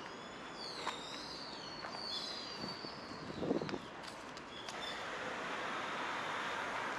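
Small birds chirping, a string of high arching calls in the first half, with a short low rustle about three and a half seconds in. From about five seconds on, a steady hiss of road traffic swells up.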